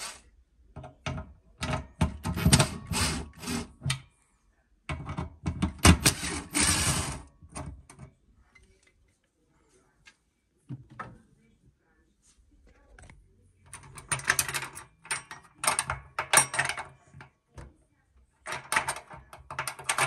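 Bosch Series 6 tumble dryer drum being turned by hand, rattling and clicking in four bursts of a few seconds each.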